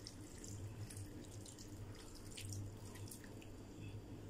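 Thin stream of sauce poured into an aluminium pot, trickling and dripping onto fried vegetables, with faint scattered drips over a low steady hum.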